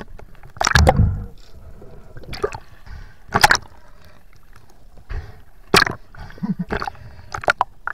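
Seawater splashing and sloshing around a camera held at the surface as it dips in and out of the water: a string of short, irregular splashes over a low watery rumble.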